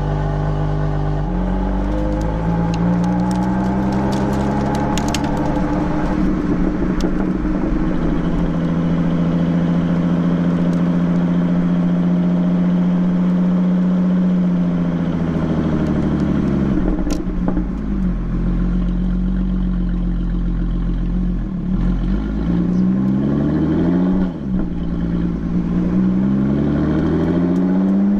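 Lotus Exige 430 Cup's supercharged V6 engine revved up and held high for over ten seconds, then dropping back to idle, followed by three or four quick throttle blips near the end. Sharp exhaust pops crackle while the revs are held, with one louder bang as the revs fall.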